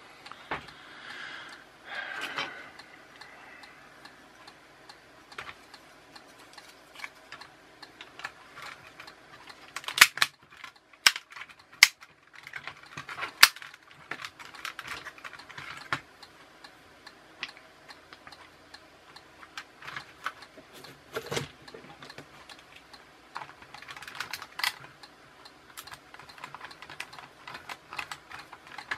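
Plastic parts of a toy RC car chassis being handled and fitted together by hand: scattered light clicks and taps, with a few sharper clicks about a third of the way through.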